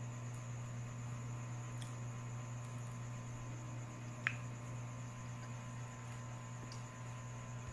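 Steady low electrical hum, with one short sharp click about four seconds in.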